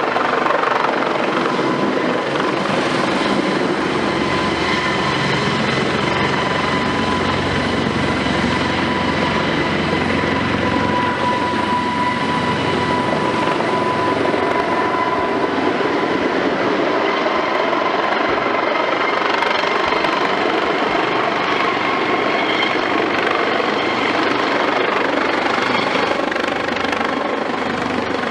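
Eurocopter AS365 Dauphin helicopter with its twin Turboméca Arriel turboshaft engines running, a steady rotor noise with a steady high whine over it.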